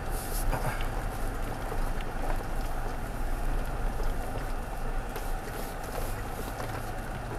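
Cabin noise of a truck crawling slowly over a rough dirt track: a steady low rumble of engine and tyres, with scattered small knocks and rattles.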